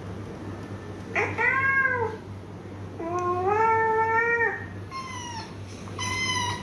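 A cat meowing four times: a short falling meow about a second in, a long drawn-out meow around three seconds in, then two shorter meows near the end.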